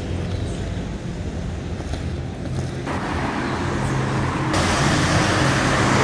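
Street traffic: vehicle engines running with a steady low hum and road noise. The hiss grows louder and brighter in two abrupt steps, about three seconds and about four and a half seconds in.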